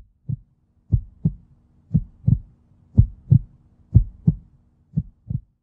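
Heartbeat sound effect: low double thumps, about one pair per second, six beats in all over a faint steady hum.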